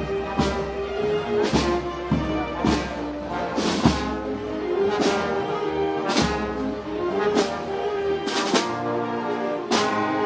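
Brass band playing Moros y Cristianos festival music: held brass notes over a steady beat of bass drum and cymbal hits about once a second.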